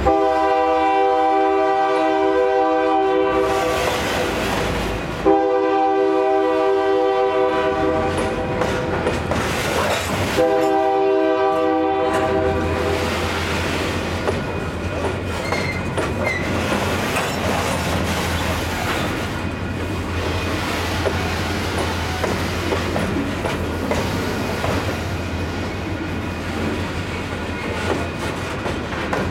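Union Pacific diesel locomotive's air horn sounding three blasts, the first two long and the third shorter, over the engine's low drone. After the horn the freight train rolls on, its wheels clattering over the rails.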